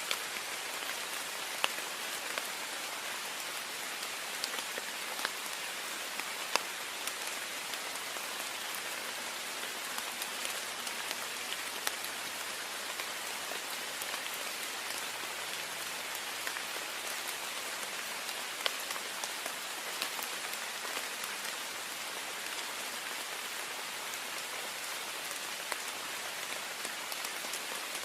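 Steady heavy rain pattering on a window, an even hiss with individual drops ticking sharply against the glass every so often.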